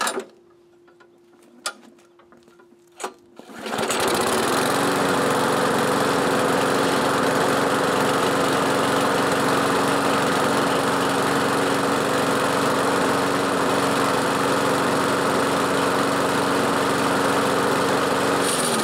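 4¾ hp Briggs & Stratton single-cylinder engine on a Craftsman push mower: after a few faint clicks it starts about four seconds in and runs steadily at a constant speed. It runs, but not as smoothly as it should; the owner finds a bent blade and a slightly bent crankshaft shaking the deck and handle.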